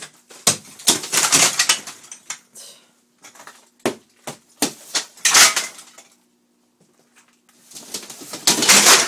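Ceramic wall tile being broken off a shower wall by hand blows: sharp strikes with pieces cracking away and crashing and clattering down, coming in three bursts. The tile gives way easily because water got behind it and rotted the backing.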